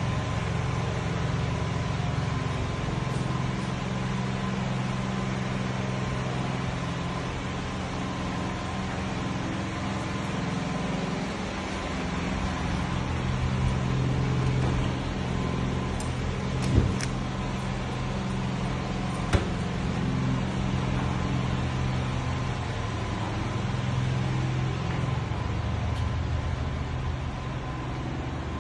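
A steady low motor drone with a faint steady whine above it runs throughout. Two sharp clicks about two and a half seconds apart come a little past the middle.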